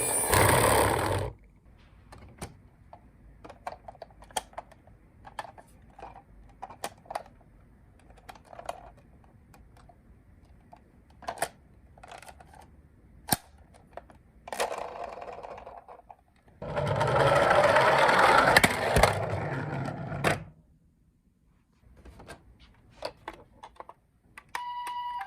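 Small plastic toy ambulances clicking and clattering as they are handled and dug through in a box, with a louder rattle of about four seconds past the middle. A toy ambulance's electronic siren cuts off about a second in, and another toy siren starts just before the end.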